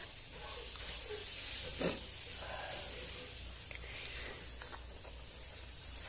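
A person eating catfish with a spoon, with chewing and mouth sounds close to the microphone. A few sharp clicks come through, the loudest about two seconds in.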